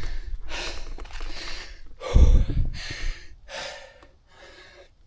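A cyclist panting hard after a steep climb: quick, gasping breaths, about one a second or faster, easing off toward the end. A gust of wind hits the microphone about two seconds in.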